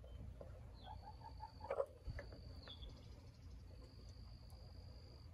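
Faint, steady high-pitched trill of insects, breaking off and starting again a few times, with one brief louder low sound just under two seconds in.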